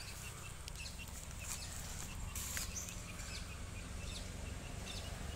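Lister-type 6 hp Field Marshal single-cylinder water-cooled diesel engine running steadily at slow speed, about 650 rpm. Small birds chirp over it.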